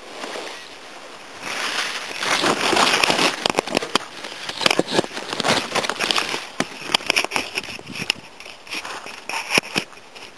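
Dry crackling and rustling close to the microphone, with many sharp clicks, loudest from about two to six seconds in and thinning out near the end.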